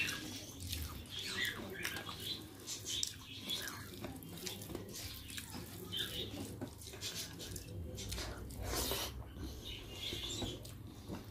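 Soft, starchy rice being squished and mixed by hand, with wet chewing and lip-smacking mouth sounds. Short, irregular clicks and smacks follow one another throughout.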